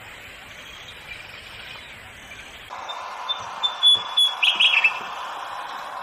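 A bird chirping: a string of short, high notes, then a quick cluster of falling notes, over steady outdoor background noise that changes abruptly partway through.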